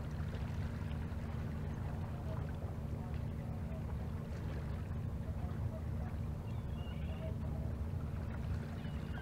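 Fishing troller's engine running steadily: a constant low rumble with a faint steady hum, as the boat motors slowly across calm water.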